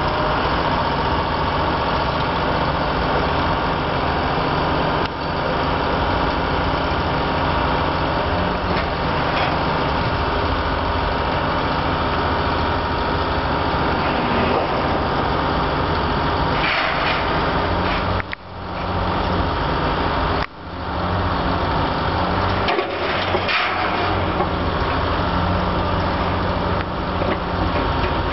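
Diesel engine of a lattice-boom crawler crane running steadily while it works a clamshell bucket on a brick wall, with two brief drops in level a little after the middle.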